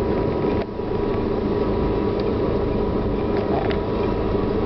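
Steady mechanical hum of a train coach's onboard machinery heard inside the carriage, with a thin steady whine over it and a brief dip in level about half a second in.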